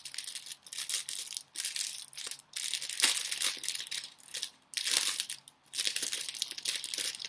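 Packaging crinkling and rustling as it is handled and opened, in irregular bursts with brief pauses, loudest about three and five seconds in.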